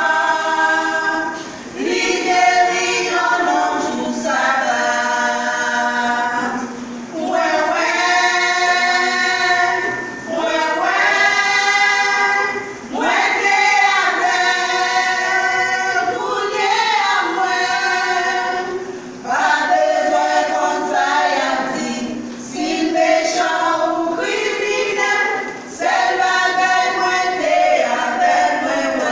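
A vocal group singing a gospel song in Haitian Creole without instruments, in sustained phrases with a short break every few seconds.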